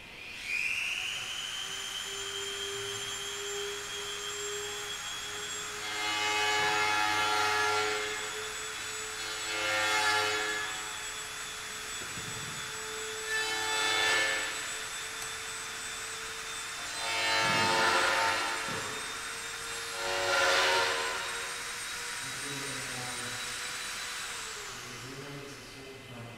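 Electric motors of the ARCADE docking test rig whining: a high steady whine that rises at the start and cuts off near the end, with five louder whirring surges a few seconds apart as the module moves along its frame and extends its docking probe.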